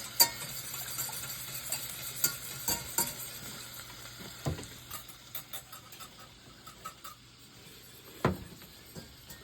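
Scattered clinks and taps of utensils against cookware, with a faint steady hiss beneath; the sharpest clicks come right at the start and again near the end.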